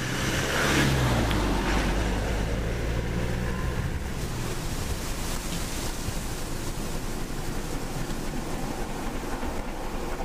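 A motor vehicle passes close by in the first few seconds, its engine note falling in pitch as it goes away. Then a steady rush of wind noise on the microphone.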